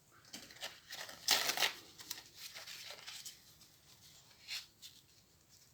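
Metal being filed by hand on a sewing machine handwheel part to smooth down a burr: brief, irregular scraping strokes and rustles, the loudest about a second and a half in.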